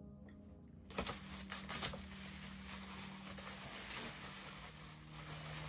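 Bubble wrap and plastic packing being pulled out of a shipping box: crinkling and rustling with a few sharp crackles, starting suddenly about a second in.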